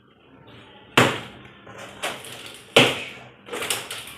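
Sharp knocks and bangs, about five in three seconds, starting about a second in, from a boxed refrigerator and its packaging being handled as it is unboxed.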